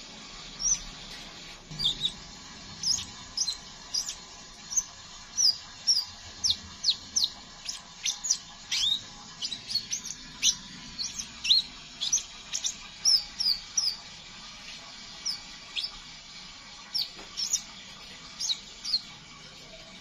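Male crimson sunbird (sepah raja) chattering: a rapid, irregular string of short, sharp, high-pitched call notes, most of them quick downward slurs. The notes come thickest in the middle and thin out toward the end.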